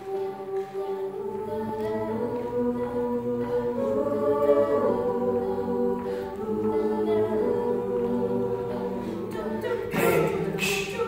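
Mixed a cappella group singing in close harmony, voices only, holding sustained chords that swell from a soft start. A brighter, noisier layer joins near the end.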